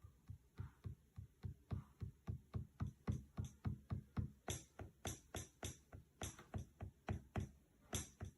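Electronic drum beat from a Native Instruments Maschine Mikro Mk3 pad controller: a steady run of low drum hits about four a second, with crisp hi-hat-like hits joining about four and a half seconds in.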